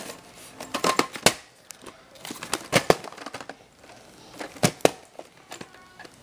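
Hands handling a VHS tape in its case: irregular sharp clicks and knocks of the case being gripped and turned, with light rustling between them.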